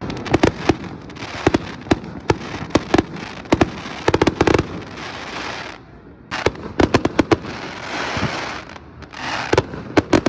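Fireworks display: a rapid run of sharp bangs and reports, with long stretches of crackling from crackle shells. There is a short lull about six seconds in before the bangs and crackling start again.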